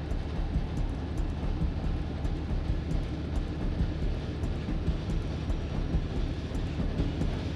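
Train running: a steady low rumble with faint clicks over it.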